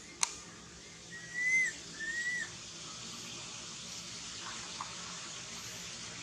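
A sharp click, then two short, high whistle-like calls about half a second apart, each holding its pitch and bending down at the end, over a steady hiss.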